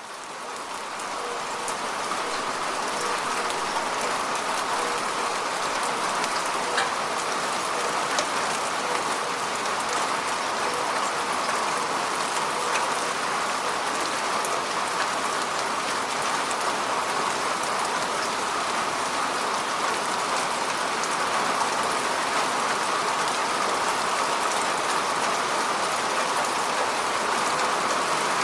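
Steady rain falling on the surface of a lake, a dense even patter with scattered sharper drop splashes, fading in over the first couple of seconds and then holding steady.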